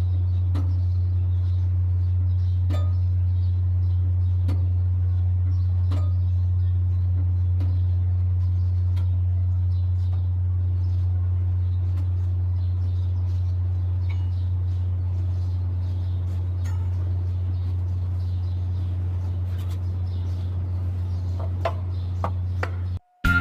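Mercedes-Benz Actros 4040 truck's diesel engine idling, a steady low hum, with faint scattered chirps and ticks above it. It cuts off suddenly near the end.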